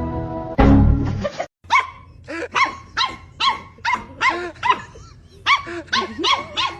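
A dog barking repeatedly in short, high-pitched barks, two to three a second. The barks follow a brief loud noisy burst near the start.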